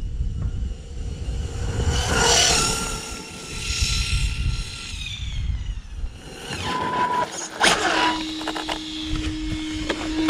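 Brushless-powered ZD Racing Pirates 3 RC buggy on a full-throttle speed run. Its high motor and drivetrain whine is loudest about two seconds in, then fades as it runs away, over wind rumble on the microphone. A sharp click comes near the end, followed by a steady low hum.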